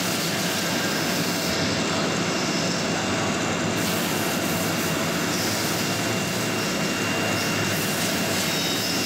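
Steady, loud drone of running machinery around a CNC router, with a faint high whine held throughout.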